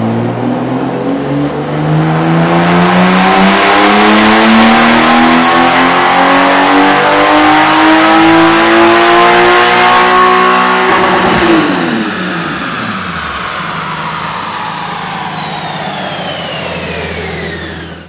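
Porsche 997 911 Carrera flat-six engine making a wide-open-throttle pull on a chassis dyno: one long, unbroken rise in pitch to high revs over about eleven seconds. The throttle then closes suddenly and the engine drops back, while the wheels and dyno rollers spin down with a slowly falling whine.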